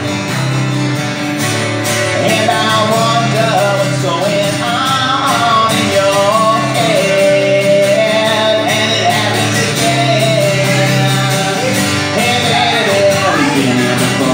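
Live acoustic guitar strumming chords, with a man's voice singing a wavering melody over it from about two seconds in.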